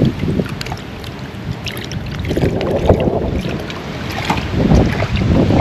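Water sloshing and swirling in a plastic gold pan dipped in a tub, with many small splashes and drips, during the final pan-out of sluice concentrates (black sands). The sloshing grows louder from about two seconds in.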